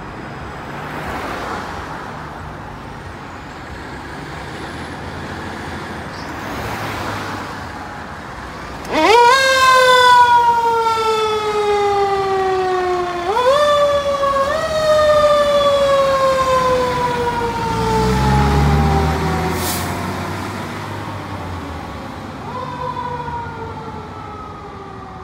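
Fire engine's siren starting up about nine seconds in. Its pitch sweeps up sharply and then slides slowly down, sweeping up again a few times as the truck passes close by, then fading as it moves off. Traffic noise comes before it, and a deep engine rumble comes near the middle.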